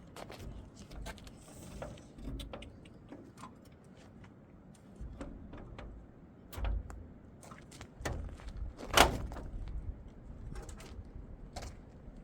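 Scattered short clicks and knocks over low rumbling, with one louder knock about nine seconds in.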